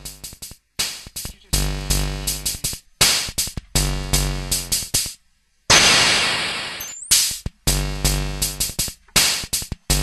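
Circuit-bent Hing-Hon EK-001 toy keyboard playing its built-in demo song with drum-machine beat, chopped into stuttering blocks that cut off and restart as its added switches are flicked. About five seconds in it drops out briefly, then gives a second-long burst of harsh hiss before the tune comes back.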